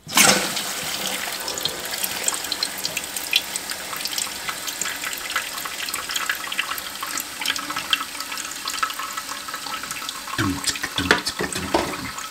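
Newly installed toilet fill valve opening as the water supply is turned on: water comes on suddenly and rushes steadily into the tank.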